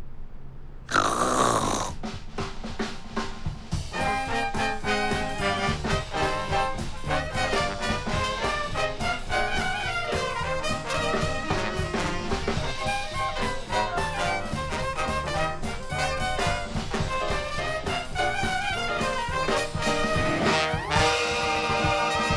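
Jazzy brass-led music, with a loud noisy burst falling in pitch about a second in. A fuller, held chord comes in near the end.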